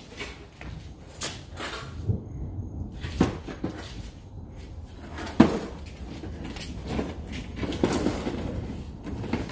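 A plastic infant car seat carrier being pushed and dragged across a concrete floor by a toddler, with irregular scrapes and knocks. The sharpest knock comes about five and a half seconds in.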